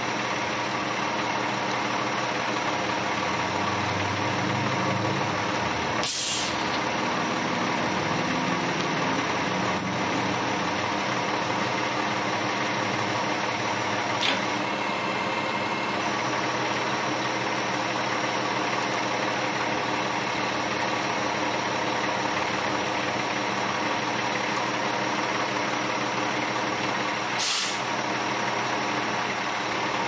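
Ready-mix concrete truck's diesel engine running steadily while it discharges concrete down its chute, with two short hisses of air, about six seconds in and near the end.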